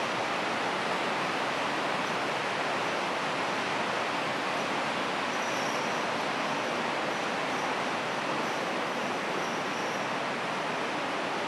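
Steady, even hiss of indoor background noise, with no distinct events.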